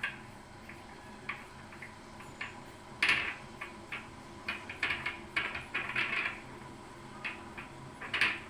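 A spoon clinking and scraping against metal kitchen utensils while two spoons of sugar are added to the kadha. The light knocks are scattered, with a busy run of them a little past the middle.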